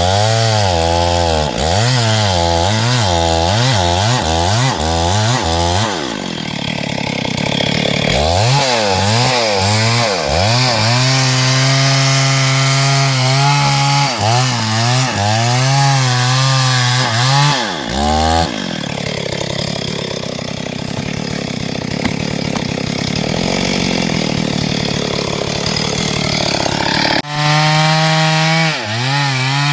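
STIHL MS382 two-stroke chainsaw running at high revs while cutting wood, its engine note wavering as the chain loads and unloads in the cut. Twice the steady note gives way to a rougher sound for a few seconds, the longer stretch in the second half.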